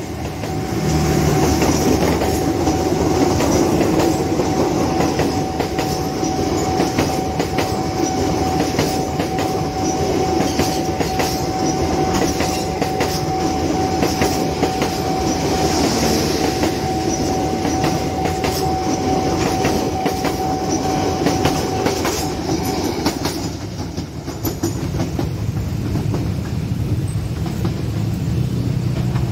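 Coaches of a locomotive-hauled passenger train rolling past close by, wheels clattering over the rail joints under a steady high tone. About 23 seconds in the sound drops away to a quieter, lower rumble.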